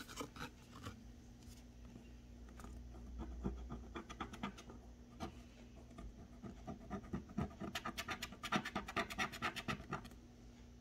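The edge of a Google Play gift card's packaging holder scraping the scratch-off panel on the back of the card, in short irregular strokes that speed up into a fast run of scrapes a few seconds before the end.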